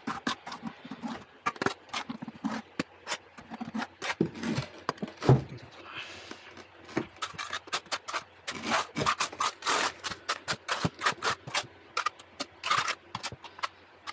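Notched steel trowel scooping thinset mortar from a bucket and spreading and combing it across the back of a floor tile: a quick, uneven run of short scrapes and taps, with one louder knock about five seconds in.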